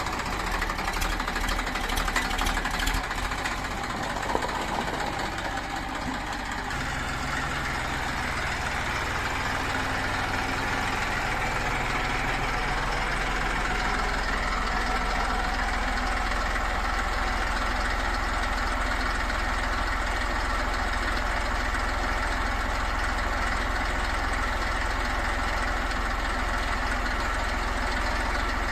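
Heavy diesel machine engine idling steadily, with some clattering clicks in the first few seconds.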